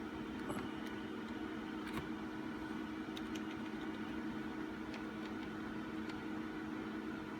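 HP ProLiant ML350 G6 server's cooling fans running with a steady hum, with a few faint clicks during it.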